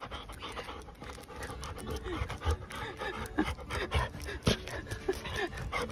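A black Labrador panting as it walks, in quick short breaths, with sharp clicks scattered through.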